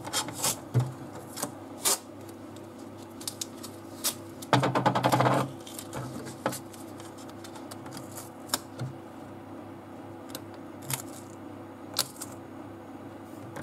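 Painter's tape being pulled off the roll: one loud, rapid crackling rip lasting about a second, about four and a half seconds in. Around it come scattered light clicks and rustles of tape and hands on the printer bed, over a faint steady hum.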